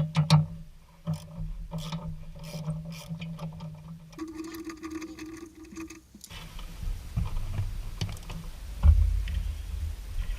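Hand tools working the wheel hub bolts: rapid mechanical clicking like a ratchet wrench, over a steady low hum, in short clips that change abruptly about four and six seconds in.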